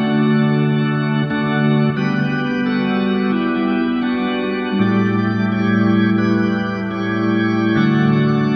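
Background music: a slow organ chorale of sustained chords, the chord changing every two to three seconds.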